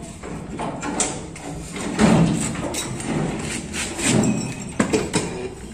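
Irregular metal clunks, knocks and scraping as a Volkswagen Beetle's transaxle and swing-axle assembly is pried and dragged off the chassis.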